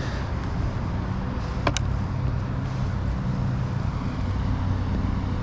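Steady low drone of distant engines, with one sharp click about two seconds in.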